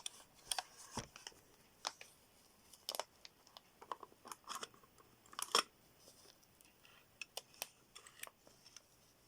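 Scattered faint clicks and small scrapes of a Pye Pocketfone PF1 transmitter unit being handled as its top cover is worked off, with the sharpest clicks about three and five and a half seconds in.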